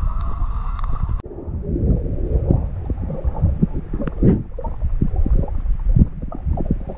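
Muffled underwater noise picked up by a camera held below a lake's surface: low rumbling water movement with many small knocks as the camera sweeps near the bottom. A steady mid-pitched hum stops suddenly about a second in, and a sharper click comes a little after four seconds.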